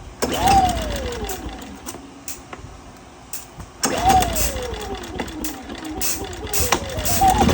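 Westinghouse 2500 inverter generator being pull-started on the recoil starter: twice the engine spins up with a sharp whirr and winds down in falling pitch without catching, then near the end it revs up and catches. The generator has a fuel-delivery fault blamed on a bad carburetor, so it only fires on starter fluid.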